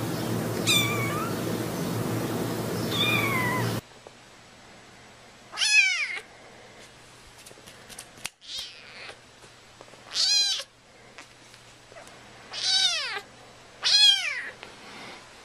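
Kitten meowing: two faint mews over a steady hiss, then four loud, high-pitched meows a few seconds apart, each falling in pitch.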